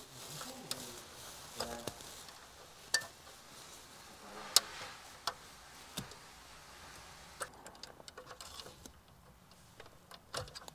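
Plastic wiring connectors being unlatched and pulled from the back of a Mercedes A-Class head unit: scattered sharp clicks and small rattles, the loudest about four and a half seconds in, with a quick run of small ticks near the end.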